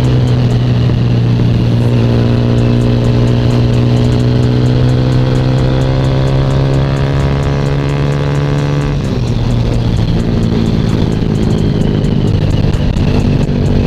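Sigma 250 motorcycle engine running under way. Its pitch climbs slowly for several seconds as the bike speeds up, drops abruptly about nine seconds in, then holds steady.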